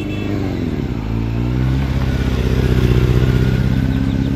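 Sport motorcycle engine, its revs falling over the first two seconds, then held at a steady note that swells slightly, loudest about three seconds in.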